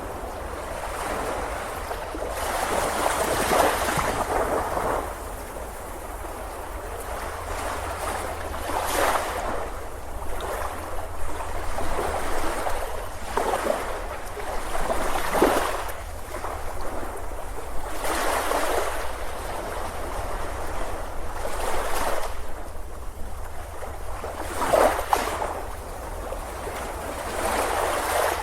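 Sea waves breaking on a beach: a rushing wash of surf swells and fades every two to four seconds. A steady low rumble runs underneath.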